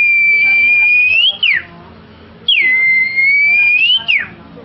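A person whistling a bird-call imitation: two long whistled notes, each about a second and a half. Each one dips at the start, holds steady, then rises and drops off sharply.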